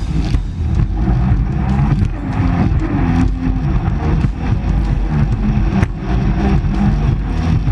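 Jet ski engine running steadily under way.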